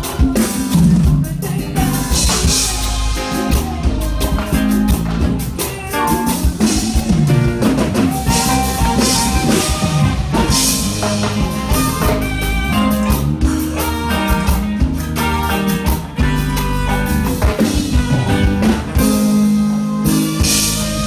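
A band playing live on drum kit and guitar during a sound check.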